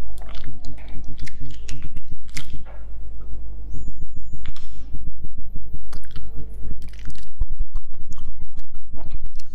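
Close-miked chewing and the crackle of boiled eggshells being cracked and picked off with fingers: many quick sharp clicks.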